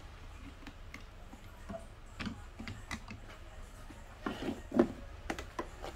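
Light clicks and small knocks of hands handling a speaker amplifier's parts, a toroidal transformer and its mounting plate, during reassembly. The taps are scattered, with a louder cluster after about four seconds, over a faint low hum.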